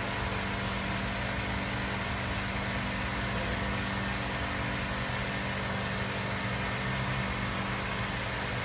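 A steady mechanical hum with a constant pitch and an even hiss, unchanged throughout, with no tool strikes or clicks.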